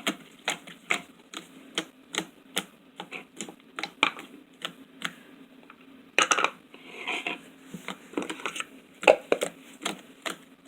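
Slime being kneaded and squeezed by hand, giving repeated sharp clicks and pops about two or three times a second, with a longer burst about six seconds in.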